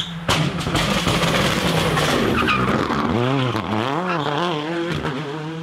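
Skoda Fabia WRC rally car's turbocharged four-cylinder engine at full race throttle, arriving loud about a quarter second in and then revving up and down in quick swings as the car slides round a tight hairpin, with tyres skidding on the tarmac.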